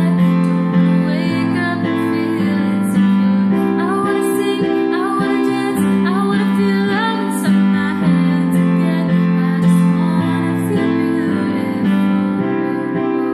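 A woman singing a slow pop ballad over chordal instrumental accompaniment. Her voice drops out near the end while the accompaniment carries on.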